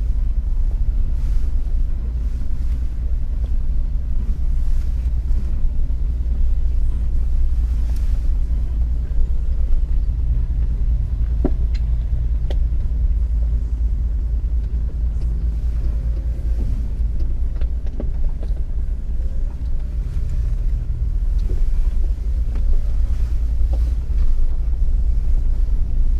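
Jeep Wrangler's engine and drivetrain rumbling low and steady, heard from inside the cabin as it drives a trail, with a few light knocks around the middle.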